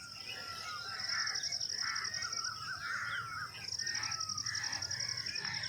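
Background birdsong: several birds chirping and warbling, over an insect's steady high, rapidly pulsing trill.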